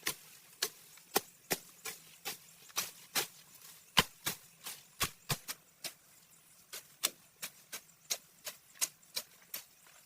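A rapid series of sharp knocks or chops, about three a second and unevenly spaced, with the loudest about four seconds in.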